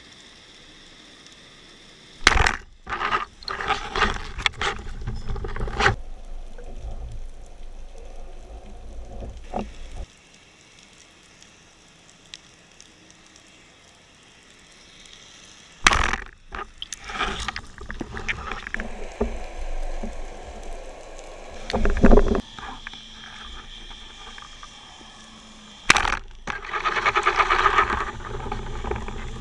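Underwater sound from a camera mounted on a speargun: a faint steady hiss broken by sharp knocks and stretches of rushing, scraping noise as the gun is handled. Near the end a sharp crack is followed by a few seconds of loud rushing, rattling noise as the speargun is fired.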